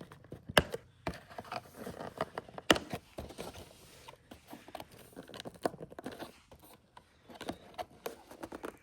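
Cardboard box being opened by hand: scraping, rustling and tearing of the packaging, with many small clicks and two sharp snaps, one about half a second in and one near three seconds in.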